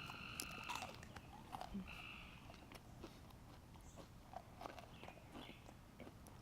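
Faint chewing and biting on a burnt hamburger patty: soft, scattered crunchy clicks. A frog's steady call sounds briefly near the start and again about two seconds in.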